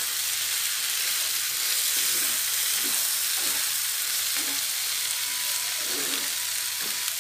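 Bitter melon and egg sizzling in a hot frying pan as they are stir-fried, a steady sizzle with soft, irregular stirring sounds from wooden chopsticks turning the pieces.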